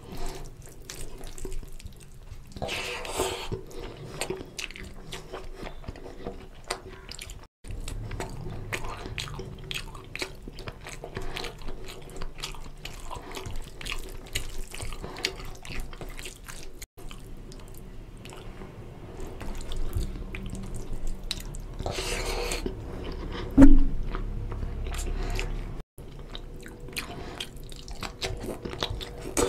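Fingers squishing and mixing rice into oily goat curry on a steel plate: a run of wet, sticky squelches and small clicks, with some louder stretches, and chewing near the end.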